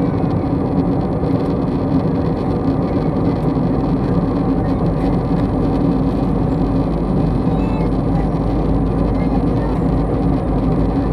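Steady drone of an airliner's engines and airflow heard inside the passenger cabin, an even noise with a constant hum and no changes.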